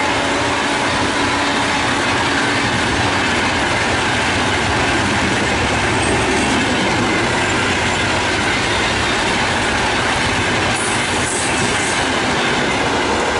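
Bangalore Rajdhani Express running through at speed close by: a loud, continuous rush and clatter of coach wheels on the rails, with no horn.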